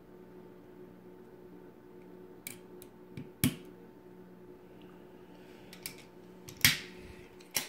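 Several sharp clicks from a fiber optic cleaver as the fiber is set in its holder and the clamps and lid are snapped shut, the loudest near the end as the lid closes. A faint steady hum lies underneath.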